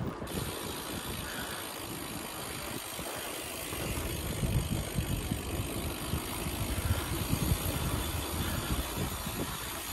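Bicycle riding along a rough, patched lane: wind buffeting the microphone over tyre noise, a little louder from about four seconds in.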